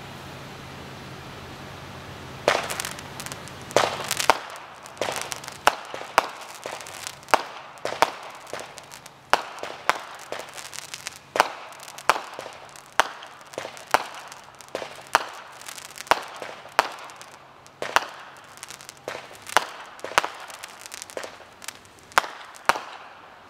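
Aerial fireworks going off: a long series of sharp bangs, roughly one or two a second, each with a short echoing tail, starting about two and a half seconds in.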